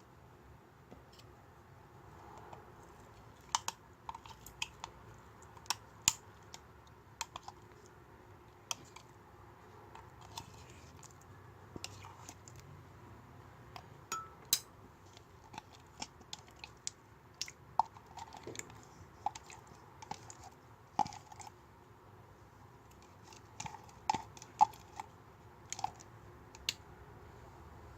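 Slime being handled by hand, making scattered sharp clicks and small pops at irregular intervals, a few of them louder.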